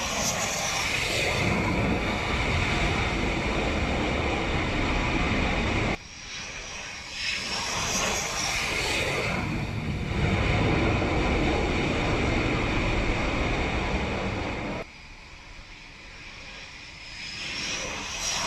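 F/A-18 fighter jets coming in low to land on an aircraft carrier, their jet engines loud, with a high whine that rises and falls as each jet passes. The sound breaks off sharply about six seconds in and again near fifteen seconds, each time building up again as another jet approaches.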